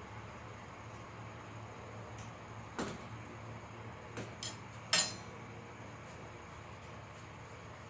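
A few light, scattered metal clinks, the loudest about five seconds in, over a steady low hum.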